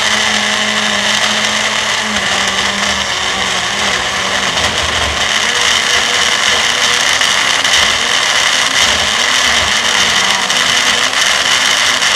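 Small bullet-style personal blender running loud and steady, its motor working through frozen bananas, milk and walnuts as they blend into a thick banana ice cream.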